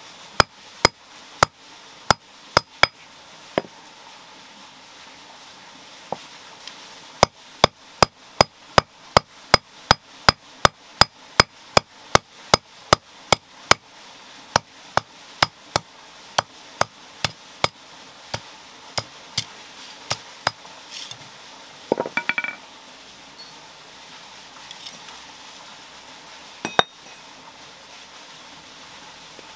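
Hammer blows on iron, ringing with each strike, in steady runs of about two a second. The blows pause for a few seconds near the start. A short irregular clatter of metal comes a little past two-thirds of the way through, and the blows stop a few seconds before the end.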